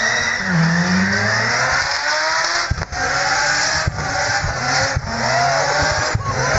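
A car doing a burnout: its engine is revving hard, the pitch rising and falling, over the noise of its spinning tyres.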